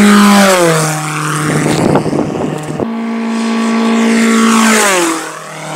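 Cessna 172 Skyhawk's piston engine and propeller flying low past, the steady drone dropping in pitch as the plane goes by. The sound cuts abruptly about three seconds in to a second low pass, which drops in pitch the same way near the end.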